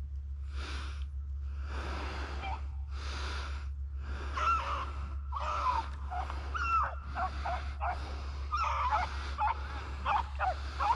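Beagles yelping on a rabbit's trail: many short, high, gliding cries from about four seconds in. Under them is a close, breathy noise that comes about once a second.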